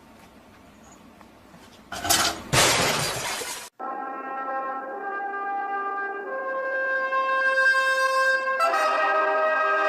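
A loud, noisy crash about two seconds in, lasting under two seconds, then music with long held brass-sounding notes.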